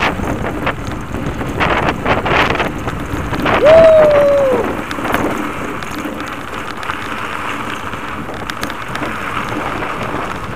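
Wind buffeting the microphone of a camera on a moving Blokart land yacht, with rushing gusts that are strongest in the first few seconds. About three and a half seconds in, a short single tone sounds for about a second, sliding slightly downward; it is the loudest moment.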